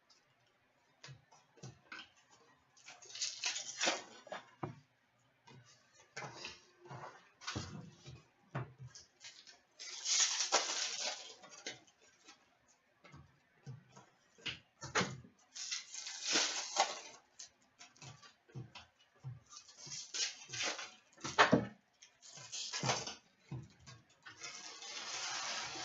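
Hockey trading-card packs and cardboard boxes being handled and opened: irregular rustling and crinkling of foil wrappers and cardboard, with small knocks in between.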